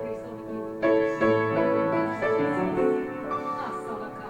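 Keyboard or piano playing slow, sustained chords.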